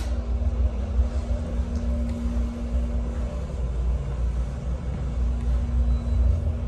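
Schindler hydraulic elevator car in motion: a steady hum over a low rumble.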